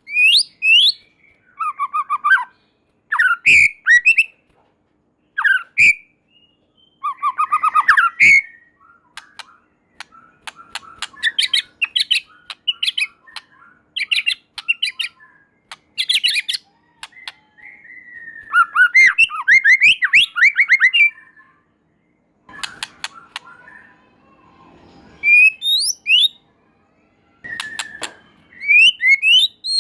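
White-rumped shama (murai batu) singing: a string of varied whistled phrases, with rising and falling glides and fast runs of repeated notes, broken by short pauses.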